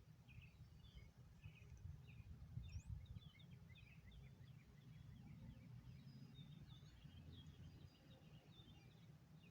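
Near silence: faint chirping of small birds over a low, steady rumble of background noise.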